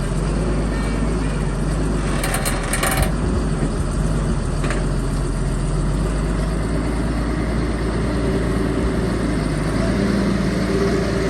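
Excavator's diesel engine running steadily under work, with a brief metallic clatter about two seconds in and the engine note rising slightly near the end.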